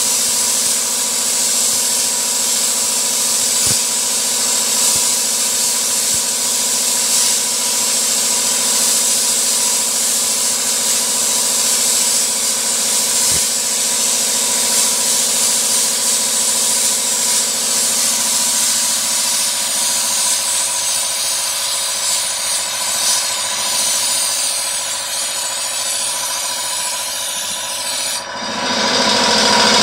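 Sandblasting gun hissing steadily as compressed air drives abrasive against masked glass to etch it, with a brief break near the end.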